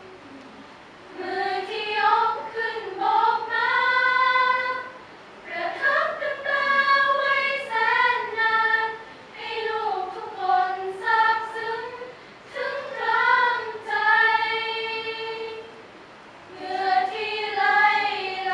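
Women's student choir singing in harmony without accompaniment, in phrases of a few seconds with short breaks between them.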